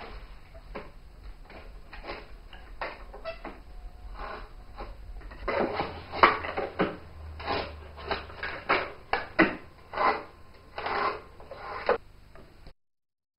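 Hand-tool woodworking: a draw knife shaving a wooden shingle on a shaving horse, an irregular series of short scraping strokes and knocks. The strokes grow louder from about halfway through, and the sound cuts off suddenly near the end.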